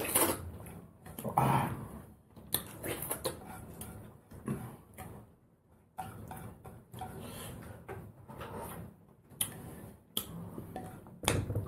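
Eating rice and mutton curry by hand from a ceramic plate: fingers scraping and mixing food against the plate, with chewing and mouth sounds, in short irregular bursts.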